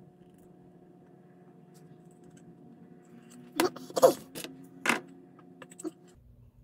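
Four or five sharp knocks and clicks from a hot glue gun and a dome-shaped display-stand base being handled on a work mat, most of them in the back half, the loudest near the middle. Under them a steady low hum stops abruptly near the end.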